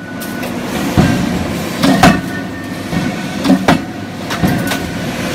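Electro-hydraulic die forging hammer striking a hot stainless steel surgical-scissors blank in a closed die. The blows come roughly once a second, some in quick pairs, each a sharp metallic bang with a brief ring after it.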